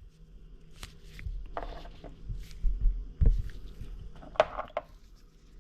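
Handling noise from small hard parts, the removed fuel injectors: a few light clicks and knocks, two short scraping rustles and a couple of low bumps.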